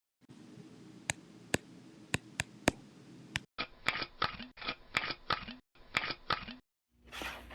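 Aluminium composite panel being folded by hand along its V-grooves: a run of sharp cracks and snaps over a faint hiss, then short, abruptly cut stretches of crackling clicks.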